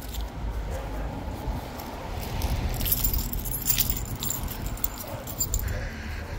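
Small metal objects jingling and clinking for a second or two around the middle, over a steady low rumble of wind and handling noise on the microphone while walking.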